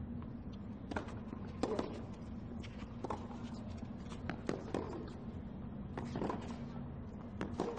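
Tennis rally on a hard court: the ball being struck by rackets and bouncing, a series of sharp pops every second or so over a steady low background hum.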